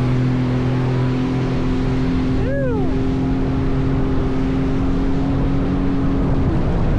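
Jet ski engine running at steady speed, with a steady hum over a wash of water and wind noise. About two and a half seconds in, a short whine briefly rises and falls in pitch.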